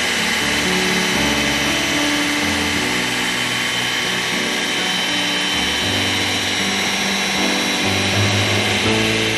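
Ninja Professional 1500-watt countertop blender running steadily, liquefying strawberries and watermelon into juice: a continuous motor rush with a steady high whine.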